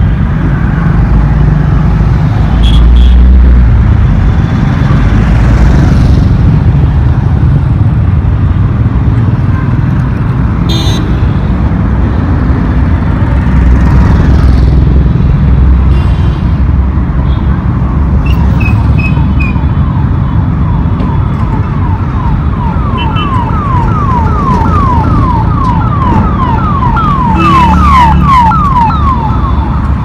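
Mixed road traffic passing: cars, auto-rickshaws, motorcycles and trucks make a steady, dense rumble of engines and tyres. From a little past halfway until near the end, an electronic siren yelps in fast, repeated sweeps.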